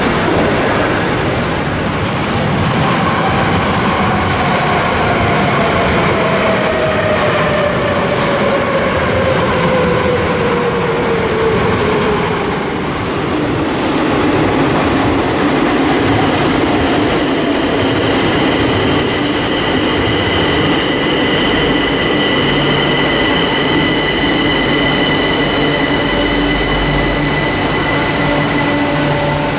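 Madrid Metro electric trains in an underground station: a train's whine falls steadily in pitch over about ten seconds. From about halfway, a steady electrical whine and hum takes over, with a low rumble near the end.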